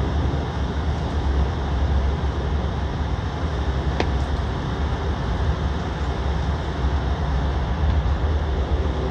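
Airliner cabin noise while taxiing: a steady low rumble from the engines and the wheels rolling on the taxiway, with a hiss over it. A faint click about four seconds in.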